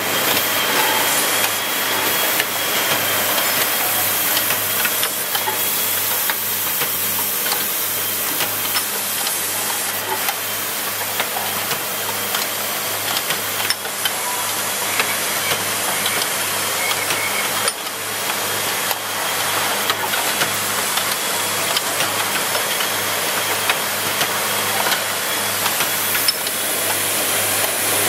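Automatic micro-motor assembly machine running: a steady low hum from its vibratory bowl feeder under a constant hiss, with pneumatic cylinders and grippers clicking and knocking now and then.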